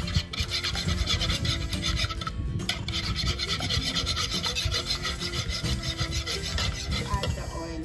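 Wire balloon whisk beating eggs in a mixing bowl: fast, rhythmic scraping and rattling of the wires against the bowl, with a brief pause about two and a half seconds in.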